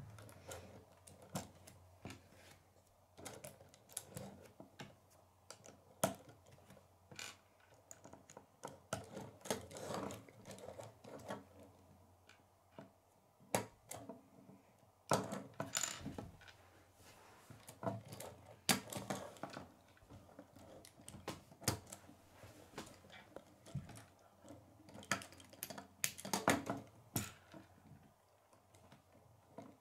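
K'nex plastic rods and connectors clicking and snapping together as a model car is put together by hand, with pieces knocking on a wooden tabletop: irregular small clicks and snaps, a few sharper than the rest.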